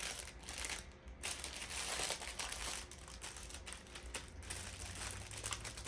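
Packaging crinkling and rustling as it is handled, with many small sharp crackles, as an item is unwrapped.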